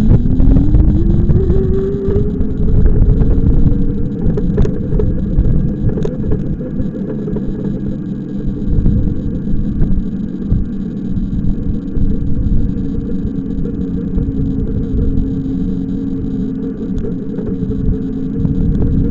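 Electric drive motor whining, rising in pitch as it speeds up over the first second or two and then holding a steady pitch while cruising, over the rumble of wheels on the path and wind. A few light clicks come through along the way.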